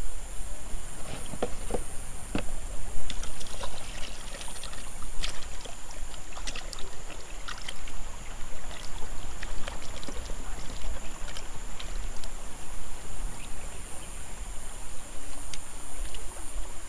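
Shallow river water splashing and sloshing as a plastic toy helicopter is swished and scrubbed by hand, with many small sharp splashes over a steady flowing-water hiss. A few light knocks about two seconds in, from the plastic toys being handled on the river stones.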